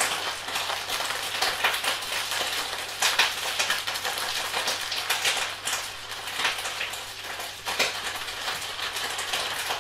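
Frying peppers (Bratpaprika) sizzling and crackling in a frying pan, with a few light clicks and knocks on top.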